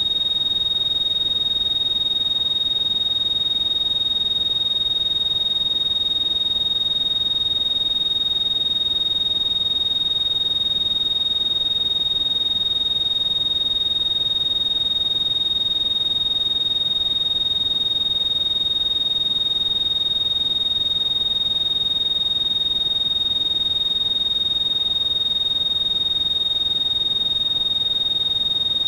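Synthesized tinnitus-masking sound: a steady, very high-pitched pure tone that holds one unchanging pitch, over a faint hiss of noise.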